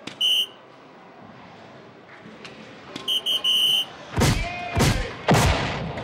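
Electronic soft-tip dartboard machine beeping as each dart scores: one short beep just after the start and three quick beeps about three seconds in. Then come three loud rushing sound effects with gliding tones, the machine's award effect for a seven-mark cricket round (triple 20, single 20, triple 20).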